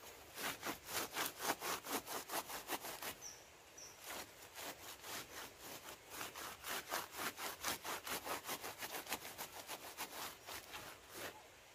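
Rapid, rhythmic rubbing strokes, about four to five a second, of a wad of leaves and a hand worked up and down the strands of a kithul palm flower cluster. There is a short break about three seconds in, then the rubbing resumes.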